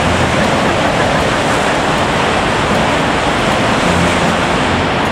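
CRH high-speed bullet train passing straight through the station at full speed: a loud, steady rushing noise.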